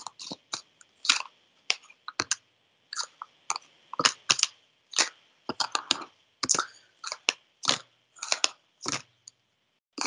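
A deck of tarot cards being shuffled by hand: an irregular run of sharp card snaps and slaps, several a second.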